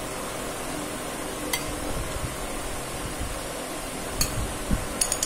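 A few light clinks of a metal spoon against a ceramic plate while cheese is spooned onto toast: one about a second and a half in, another about four seconds in, and a quick double clink near the end, over a steady background hiss.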